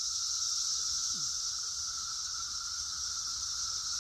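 Chorus of many periodical cicadas singing, really loud: a steady, unbroken high hiss with a lower steady hum beneath it.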